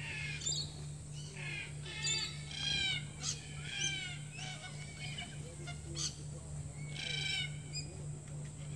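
Red-tailed black cockatoos calling: harsh, grating calls in short bursts of about half a second from several birds, clustered around two to three seconds in and again near seven seconds.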